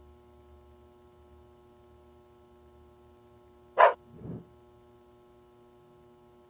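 A dog gives one short bark about four seconds in, with a fainter second sound just after it, over a low steady electrical hum.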